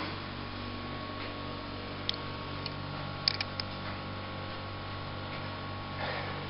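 Steady low hum with a fainter higher tone, and a few light clicks about two seconds in and a quick cluster of three about three and a half seconds in.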